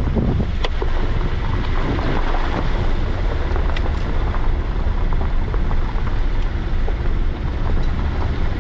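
Suzuki Vitara driving slowly along a rough dirt track: a steady low rumble of engine and tyres on the uneven ground, with wind buffeting the microphone and a few light knocks.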